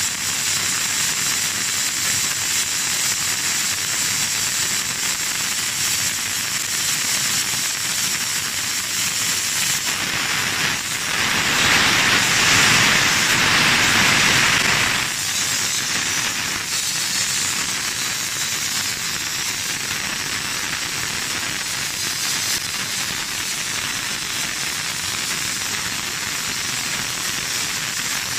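Refrigerant hissing steadily out of the compressor through the gauge manifold's charging hose as the system is emptied down to zero pressure. The hiss swells louder for a few seconds about eleven seconds in.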